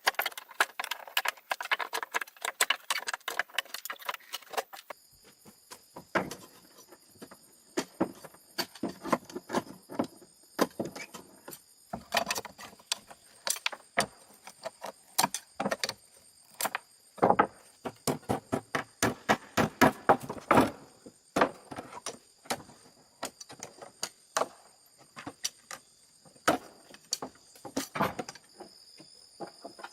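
Irregular clattering and knocking of hard objects being handled and set down, many sharp strikes in quick runs. A steady high insect chirring joins about five seconds in.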